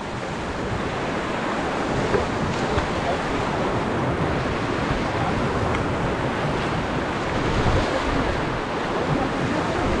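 Ganga whitewater rapids rushing and churning around an inflatable raft, a steady loud rush of water, with wind on the microphone.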